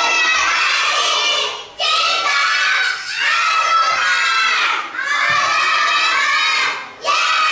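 A class of young children chanting loudly in unison, in phrases of about two seconds with short breaks between them.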